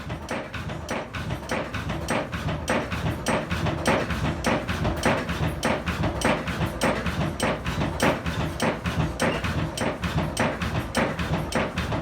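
Forge blower being worked by hand to blow air into the forge fire, a steady rapid clacking of the mechanism several times a second over a low rumble, driving the fire up to forging heat.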